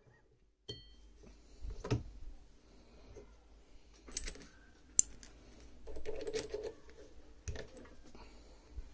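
Metal parts of a small cast-iron prayer-bead lathe being handled and adjusted by hand: scattered clinks and clicks, a short ringing clink about a second in and a sharp tap about halfway through, followed by a brief rustle.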